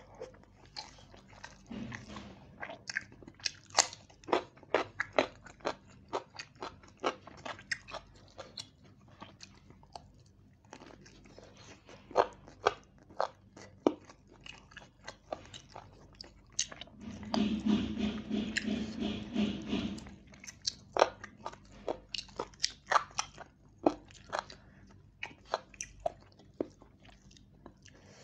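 Close-miked mouth sounds of a person eating roast chicken and rice by hand: chewing and biting, with many sharp, irregular smacks and clicks, several a second. About two-thirds of the way through, a steady pitched sound lasts about three seconds.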